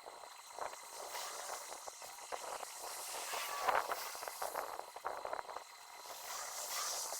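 Faint, irregular scratchy rubbing strokes of oil being spread over a wooden oak chair.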